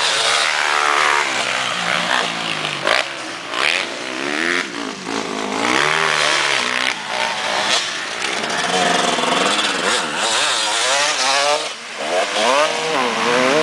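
Two-stroke KTM 250 motocross bike engine revving hard and backing off over and over as it is ridden over jumps and rough dirt, its pitch sweeping up and down with the throttle. Other dirt bikes can be heard on the track as well.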